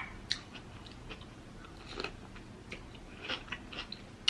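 Close-miked chewing of crunchy cucumber slices: scattered wet crunches and mouth clicks, several over a few seconds.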